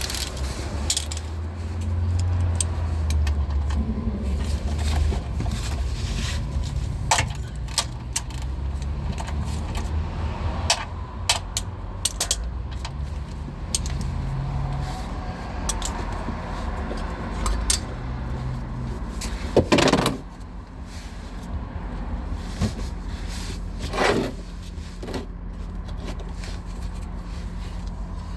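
Metal clinks and scrapes of a 13 mm socket and wrench as the oil drain plug is loosened under the car, with a low rumble of handling. Short scattered clicks, and louder knocks about 20 and 24 seconds in.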